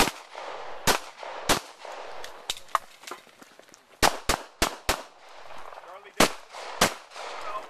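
Handgun shots fired at close range, sharp and loud: three spaced shots in the first two seconds, a quick string of four about four seconds in, then two more. Fainter cracks come in between.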